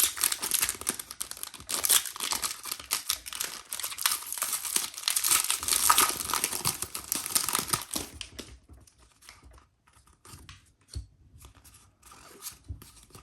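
Foil wrapper of a Pokémon TCG booster pack being crinkled and torn open, a dense crackling that lasts about eight and a half seconds. After that come faint scattered ticks as the cards are handled.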